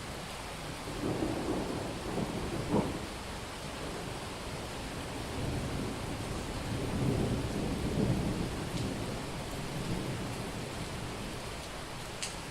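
Steady heavy rain with thunder rumbling over it in two rolling swells: a shorter one about a second in, and a longer one from about five to ten seconds in.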